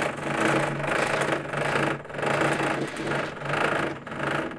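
Several motorized sex toys and Xbox gamepads running together on a desk: a Fleshlight Launch stroking back and forth while vibrators and controller rumble motors buzz against the desk. A steady low hum under a buzzing that swells and fades about twice a second, stopping abruptly at the end.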